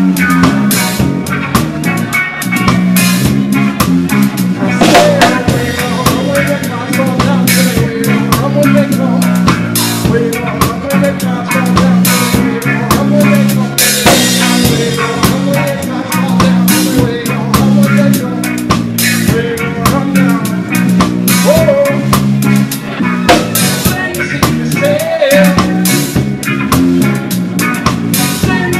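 Live reggae band playing, heard close to the drum kit: steady snare, rimshot and kick-drum hits over a bass line. A cymbal crash rings out about halfway through.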